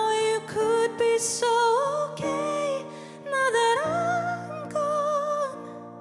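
A woman singing a slow ballad live into a handheld microphone, over held accompaniment chords. Her voice pauses briefly midway, and her last phrase ends shortly before the close, leaving the accompaniment.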